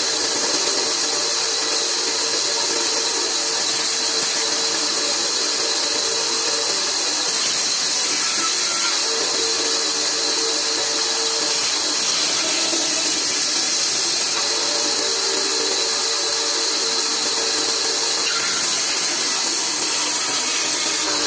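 Large old bandsaw running steadily while a scrap of wood is pushed through the blade: an unbroken hiss that swells slightly a few times.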